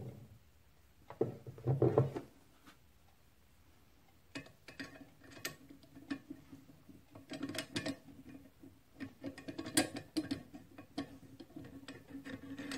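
Irregular metallic ticks and clicks as a small hand tool works against the cast-iron governor weight bracket on the hub of an International Type M engine flywheel. A brief mumble comes about a second in.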